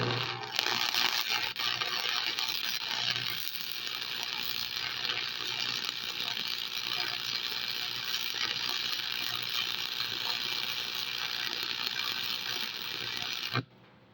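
Electric arc welding: a steady sizzling crackle of the arc as a weld bead is run, starting just as the arc strikes and cutting off suddenly near the end when the arc is broken.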